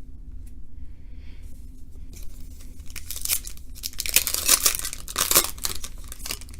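A 2018 Donruss Optic baseball card pack's wrapper being torn open and crinkled: a few light clicks, then a few seconds of tearing and crinkling, loudest just past the middle.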